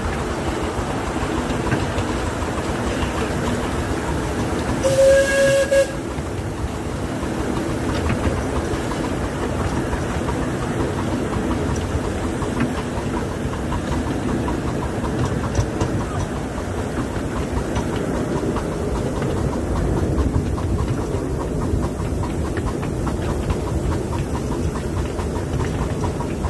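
Miniature steam train running on its track, the carriage wheels rumbling and clicking over the rails. One loud steam-whistle blast of about a second sounds about five seconds in.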